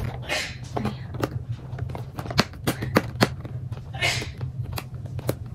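Cardboard gift box handled while fingernails pick at its taped seal: irregular sharp clicks and taps of fingers on card, with two short scraping rustles, about half a second in and about four seconds in.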